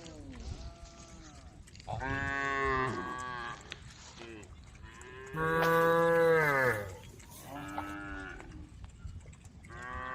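Several cows mooing one after another: long drawn-out moos at different pitches, each sliding down at its end, the loudest a little past halfway.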